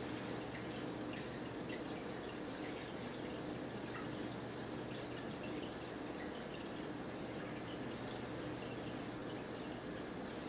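Quiet, steady room noise with a low hum and a few faint small ticks.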